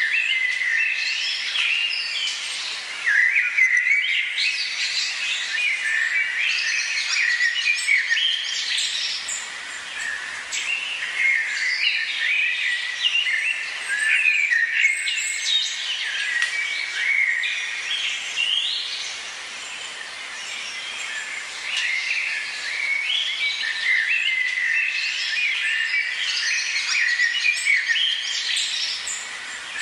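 A dense chorus of many rainforest birds chirping and calling over one another. It thins out briefly about two-thirds of the way through.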